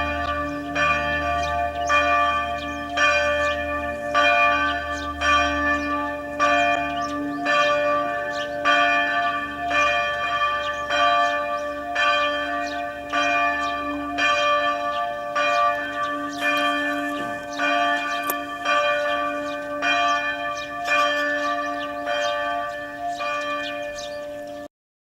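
Church bells ringing, struck over and over at roughly one stroke a second, with their tones hanging on between strokes. The ringing cuts off suddenly near the end.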